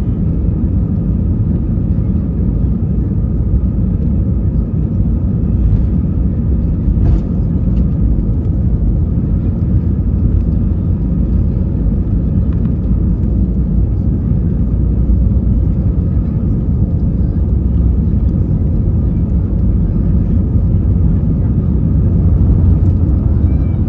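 Steady deep rumble of an Airbus A320's CFM56 jet engines and the air rushing past, heard from inside the passenger cabin, with a faint steady hum above it.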